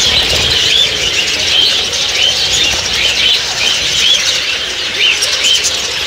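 A flock of budgerigars chattering: many short, curling warbled chirps overlapping without a break.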